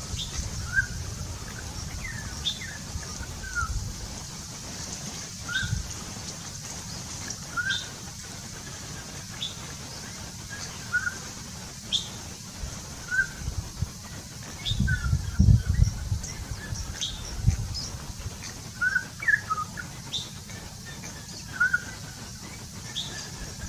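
Birds giving short chirping calls every second or two over a steady high-pitched hiss, with a few low thumps about two thirds of the way through.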